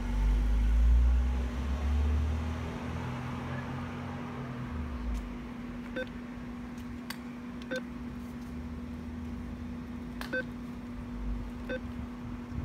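Keypad of an NCR cash machine beeping as its keys are pressed: four short beeps, each with a click, a couple of seconds apart, over a steady hum. A low rumble fills the first few seconds.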